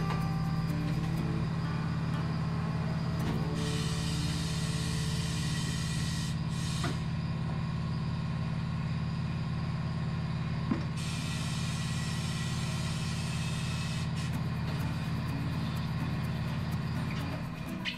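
Tyre changer running steadily with a low, even hum while the bead press roller works a low-profile tyre off its 17-inch wheel. A hiss comes and goes over it, and the machine stops shortly before the end.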